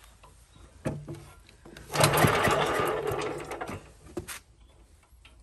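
Old small gasoline engine spun over by a pull on its starter rope about two seconds in: a rapid mechanical clatter lasting under two seconds that fades away without the engine catching.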